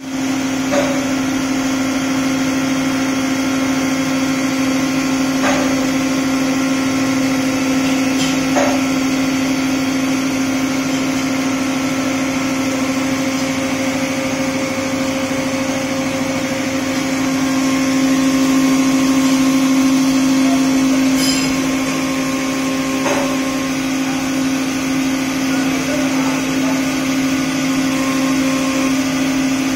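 Cosmos 4-axis vertical machining centre milling the helical flight of a metal extruder screw turned on its fourth-axis chuck, under flood coolant: a steady machining hum with coolant spray hiss. A few sharp ticks stand out, and it gets a little louder past the middle.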